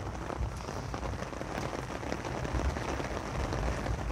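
Steady rain falling, a continuous hiss dotted with many small drop ticks.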